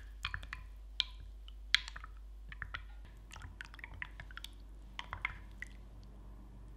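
Wooden spoon stirring milky liquid in a drinking glass: quick, irregular clicks and taps of the wood against the glass, with soft wet swishing of the liquid.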